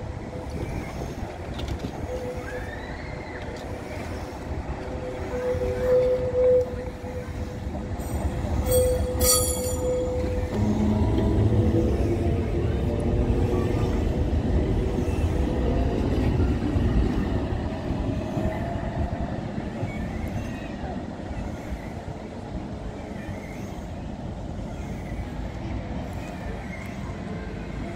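Lowa ET54 two-car tram running through tight curves, its wheels squealing on the rails with a steady high tone. A short high metallic ringing comes about a third of the way in. Then a loud rumble with whining tones as it passes close, easing off to a quieter running rumble.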